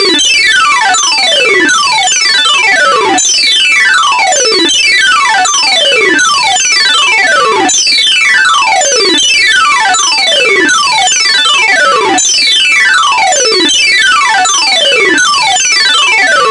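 Sony Ericsson T610 ringtone melody put through a heavy pitch effect, so that its stacked electronic notes keep sliding downward in pitch. A new falling sweep starts about every one and a half seconds, giving a dense, jumbled cascade.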